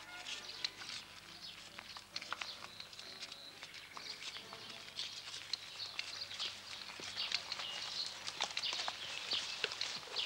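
Songbirds chirping and twittering in woodland, many short high calls overlapping, with scattered sharp clicks among them.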